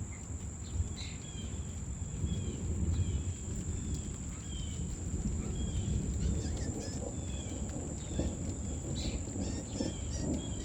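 Outdoor summer ambience: a steady high-pitched insect drone with short bird chirps repeating about once a second, over a low, uneven rumble.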